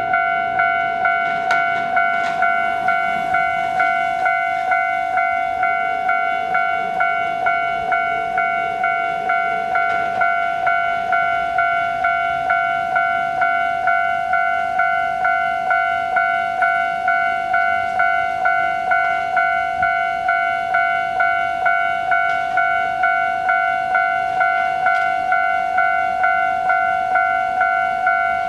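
Railway level crossing warning bell ringing in even, repeated dings, just under two a second, signalling that a train is approaching.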